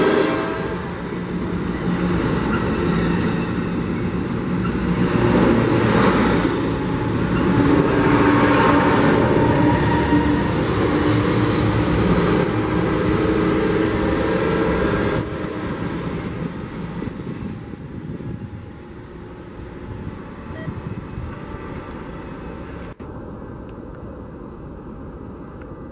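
Amtrak Pacific Surfliner passenger train passing close by: the loud rumble of the bilevel cars' wheels on the rails, then the SC-44 Charger diesel locomotive at the rear going by with a steady engine drone. The sound fades away about fifteen seconds in. Near the end, after a sudden break, a quieter distant train can be heard.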